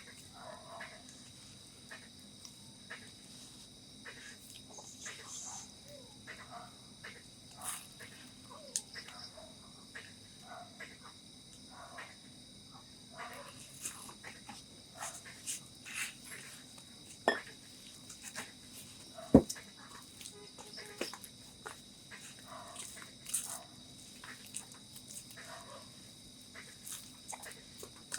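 Steady high-pitched insect drone, with scattered light clicks and knocks throughout; a sharper knock stands out about 19 seconds in.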